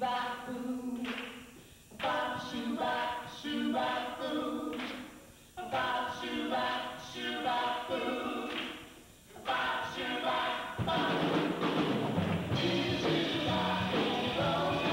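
A group of voices singing phrases with little or no accompaniment, then the full band comes in about eleven seconds in.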